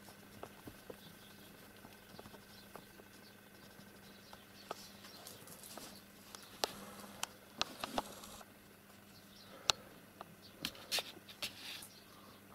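A kitten scrambling and pouncing on a blanket: soft rustling with scattered light taps and clicks, busiest in the second half, over a faint steady hum.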